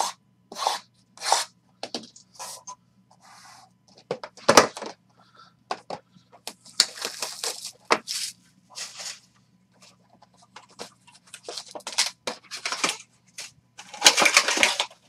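Hands opening trading card boxes and a foil-wrapped card pack: scattered clicks and taps of cardboard, one sharp click about four and a half seconds in, and crinkling and tearing of wrapper in two longer stretches, the second near the end.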